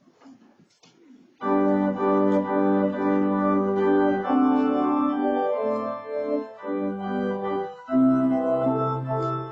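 Church organ starting a hymn introduction about a second and a half in, playing sustained chords that change every second or so.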